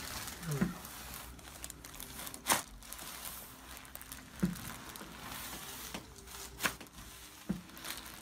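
Rustling and crinkling from movement on a chiropractic treatment table, broken by about five short sharp clicks; the loudest comes about two and a half seconds in.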